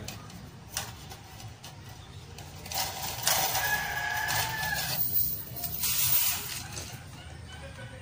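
A rooster crowing, one long held call from about three seconds in, over outdoor background noise, with a single sharp click about a second in.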